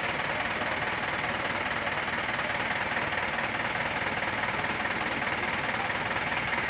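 Medium bus engine idling steadily with a fast, even low pulse.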